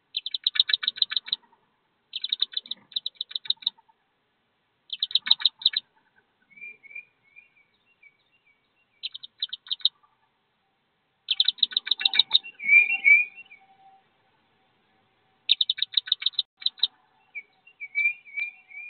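Wood duck duckling peeping in six quick runs of high, rapid peeps, with softer, lower warbling calls between some of the runs.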